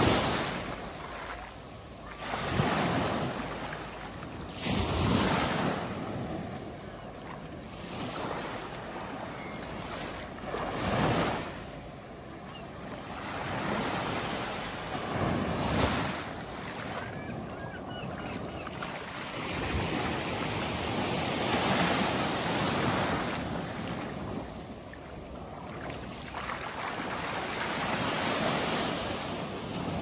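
Small sea waves breaking at the shoreline and washing up a sandy beach, the surf swelling and falling away every few seconds.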